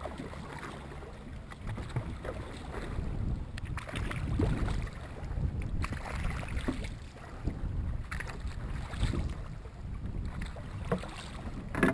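Dragon boat paddles dipping and pulling through the water in slow strokes with long pauses between them, the splashes recurring every couple of seconds. Wind rumbles on the microphone underneath.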